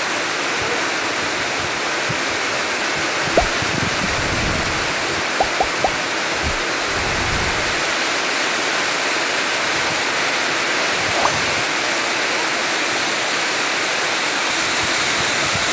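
Heavy rain pouring steadily onto a cobblestone street, an even hiss throughout. A few short, sharp ticks stand out over it: one about three seconds in, three in quick succession around six seconds, and one near eleven seconds.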